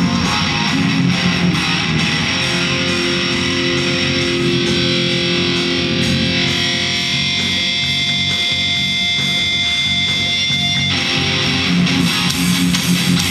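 Electric guitar played loud through an amplifier during a band sound check. About halfway through, a high held tone sets in and cuts off suddenly near the end.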